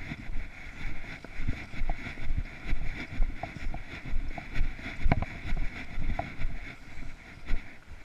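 Footsteps walking on grass and fallen leaves, about two steps a second, over a steady hiss.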